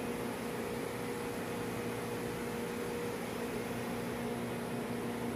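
Refrigeration plant machinery running steadily: a constant mechanical hum at two pitches under an even rushing noise.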